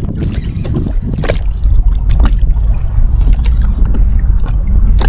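Wind buffeting the microphone with a heavy low rumble, and water sloshing around a kayak. A short high-pitched buzz comes in the first second, and light scattered clicks follow.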